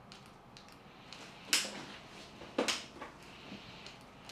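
Two sharp plastic clunks about a second apart, with a few faint clicks, from handling a Tesvor R5 cordless wet floor scrubber. No motor is heard running: the machine won't start.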